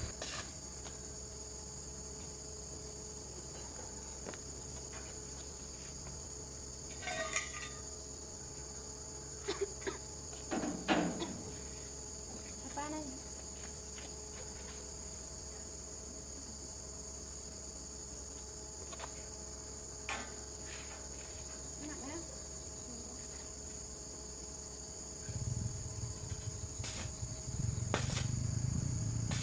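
A steady high-pitched insect chorus, like crickets, with a few scattered knocks and clicks. A low rumble comes in near the end.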